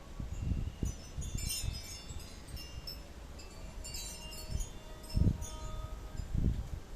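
Wind chime tinkling in two clusters of high, ringing notes, with low gusts of wind buffeting the microphone, the strongest about five seconds in.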